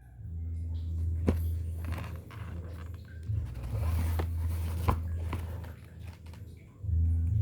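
Handling noise of a box being opened: scraping and rustling with a few sharp clicks, over a steady low rumble.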